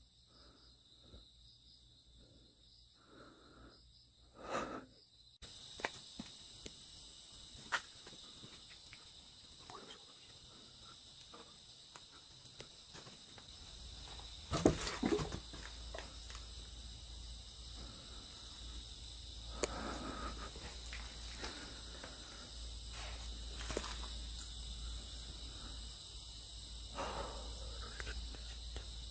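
A steady high-pitched chorus of night insects, crickets among them, which grows louder about five seconds in. About fifteen seconds in there is a brief clatter, with scattered lighter knocks and rustles around it.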